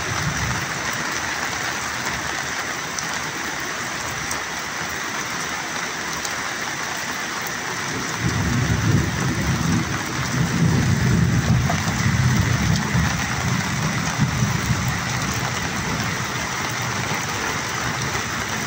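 Heavy rain pouring down in a steady hiss. From about eight seconds in, a low rumble swells for several seconds and then eases.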